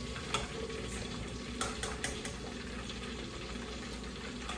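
Battered flounder deep-frying in a pot of hot oil, a steady bubbling sizzle. A handful of sharp clicks sound in the first half.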